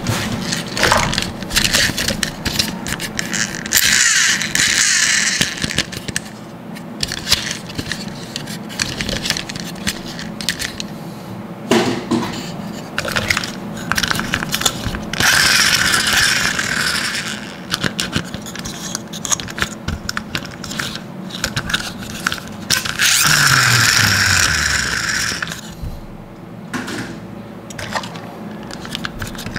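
Plastic toy monster trucks being handled, clicking and clattering against each other. There are four louder rasping stretches of about two seconds each.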